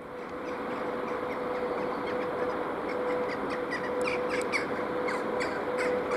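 VL80T electric freight locomotive approaching at the head of a freight train: a steady hum and running noise that grows slowly louder, with a run of short high chirps over it from about a second and a half in, thickest in the middle.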